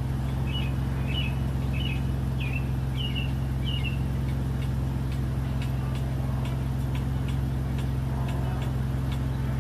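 Steady low hum of an idling car engine. A small bird chirps about seven times in quick succession during the first few seconds.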